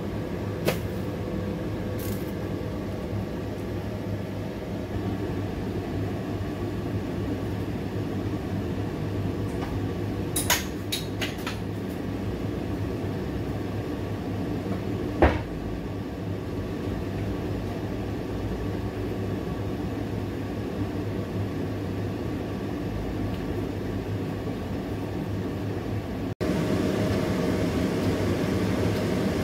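Steady hum and hiss of a gas burner heating a covered pot of water, with a few light clicks and taps. Near the end the sound jumps louder to water at a rolling boil in the open pot.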